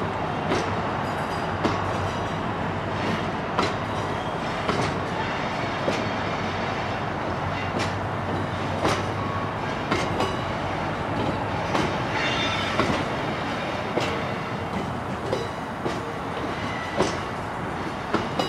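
Bogie hopper wagons of a freight train rolling slowly past: a steady rumble of wheels on the rails, broken by irregular clanks and clicks, with a few short squeals from the wheels.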